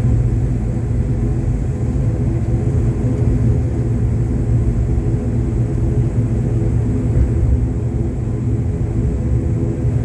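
Airliner engines running with a steady low rumble and a constant hum of several tones, even in level throughout.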